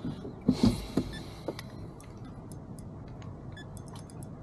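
Knocks and a brief rush of noise in the first second, then light scattered clicks and ticks: gear being handled aboard a plastic fishing kayak.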